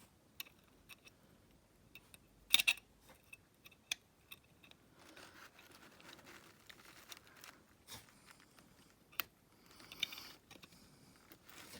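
Scattered small clicks and taps of hand tools and small engine parts being handled, the loudest a short cluster about two and a half seconds in, with soft rustling between.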